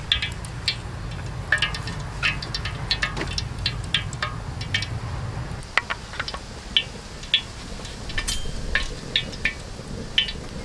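Wood fire crackling with irregular sharp ticks over a low steady rumble; in the second half, a metal spoon clinks against a stainless steel bowl while stirring batter.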